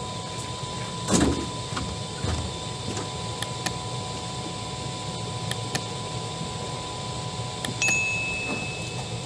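A subscribe-button sound effect: a few sharp mouse clicks, then a bell chime that rings for about a second near the end. Earlier, about a second in, there is a loud thump as a large catfish is handled in the wooden boat.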